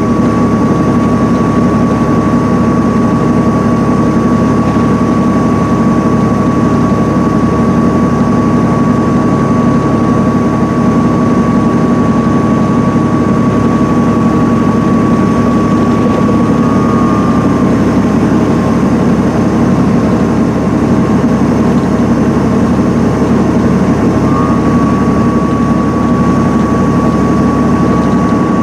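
Cabin drone of an MCI D4500CL coach at highway speed: its Cummins ISM diesel engine and tyre noise make a loud, steady rumble. A thin high whine runs through it, dipping slightly in pitch for several seconds past the middle.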